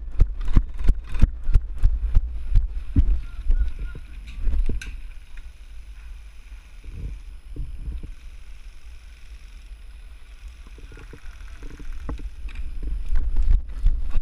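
Running footsteps, about three thuds a second, over a steady low rumble of wind and handling on the camera. The steps stop about five seconds in, leaving quieter rustling, and start again near the end.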